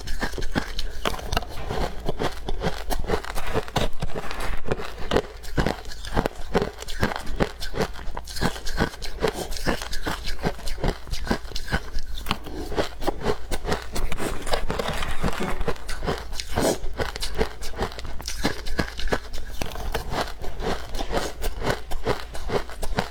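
Close-miked chewing of powdery freezer frost (snow ice): a dense, irregular run of soft crunches and crackles, several a second, without a break.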